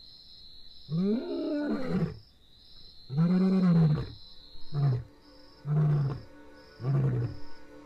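Male African lion roaring: two long, deep roars followed by three shorter grunting calls, the lion's typical roaring sequence that proclaims his territory.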